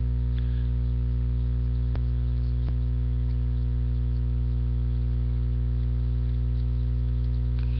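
Loud, steady electrical mains hum on the recording. About two seconds in there are two faint clicks from trading cards being handled.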